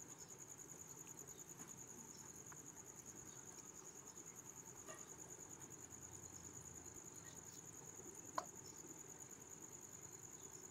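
Knife slicing green chillies over a steel plate, heard as a few faint clicks, with one sharper click about eight seconds in. A steady high, fast-pulsing trill runs underneath.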